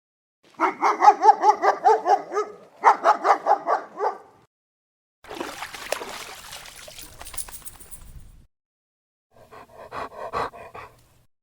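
Dog barking, in separate clips with silence between them. First comes a rapid run of high yaps lasting about four seconds, then a noisier stretch with clicks, then a short burst of barks near the end.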